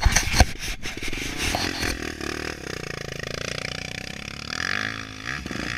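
Dirt-bike engine catching with a few irregular pops, then running steadily, revving up about five seconds in.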